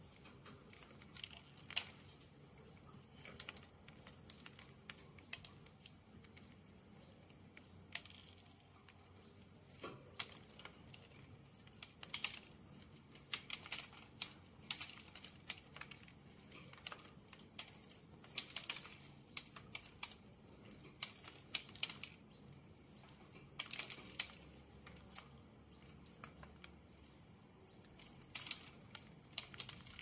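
Budgie pecking and cracking seeds from a millet spray: irregular quick, dry clicks, often in short clusters.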